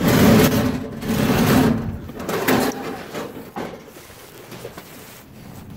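Metal roll-up door of a storage unit rattling as it is pushed up, in two loud runs over the first two seconds, followed by a few fainter knocks.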